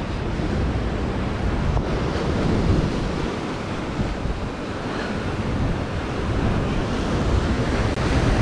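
Ocean surf breaking and washing over lava rocks, with wind buffeting the microphone.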